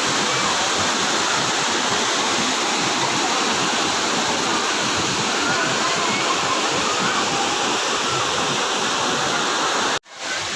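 Waterfall: a steady, loud rush of falling water, cutting out briefly near the end before it resumes.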